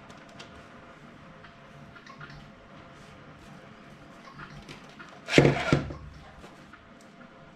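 Small plastic parts being handled: scattered light clicks, with one louder clatter about five seconds in.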